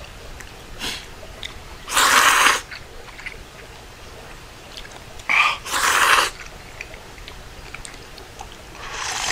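Udon noodles being slurped off chopsticks in two loud slurps, about two seconds in and again around five and a half seconds, the second one doubled. Near the end comes a further slurp as broth is sipped straight from the bowl.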